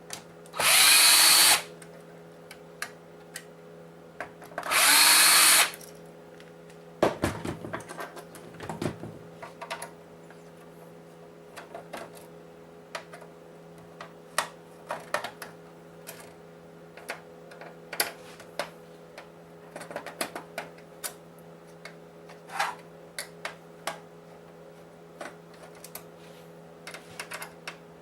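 A power drill-driver runs in two short bursts of about a second each, one near the start and one about five seconds in, backing out the console's security Torx screws. It is followed by many scattered light clicks and taps as screws and the console's metal and plastic parts are handled.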